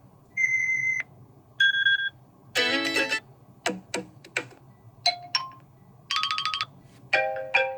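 Default iPad Air 5 alarm tones previewed one after another through the tablet's speaker. They come as a string of about eight short electronic chimes and beeps at different pitches, each cut off after a fraction of a second.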